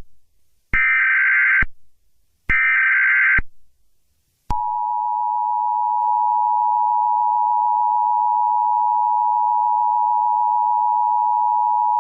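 Emergency Alert System tones: the last two of three SAME header data bursts, about a second each and a second apart. Then, about four and a half seconds in, the steady two-tone attention signal (853 and 960 Hz sounding together) starts and holds unbroken.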